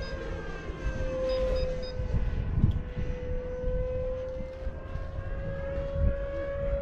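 FMS Super Scorpion 90 mm electric ducted fan jet flying overhead, its fan giving a steady high whine that sags slightly in pitch and then rises again as it passes.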